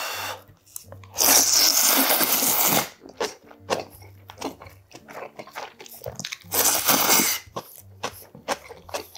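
A man slurping thick udon noodles, one long loud slurp about a second in and a shorter one near seven seconds, with wet chewing and small mouth clicks in between.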